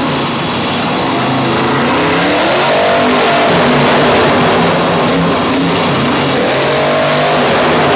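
Max-D monster truck's supercharged big-block V8 revving hard twice, its pitch climbing each time, over a loud steady wash of noise.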